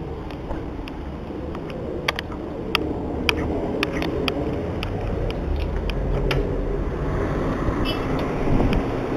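Footsteps on a concrete sidewalk, about two a second, over a steady low rumble of street traffic; a short high ring sounds near the end.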